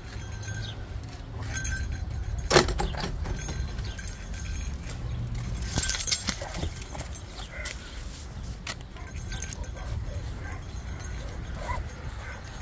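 Small metal hardware jingling and clinking during a dog walk, over low rubbing and handling noise, with one sharp knock about two and a half seconds in.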